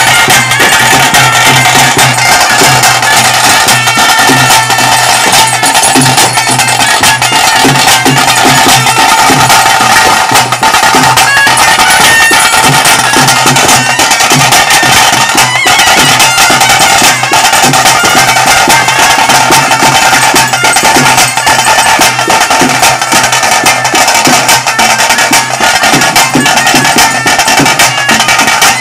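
Loud traditional ritual band music: a clarinet and a brass horn play a continuous reedy melody over steady drumming.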